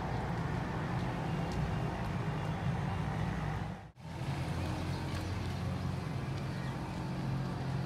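Steady low rumble of outdoor background noise that drops out to silence for a moment about four seconds in, then returns unchanged.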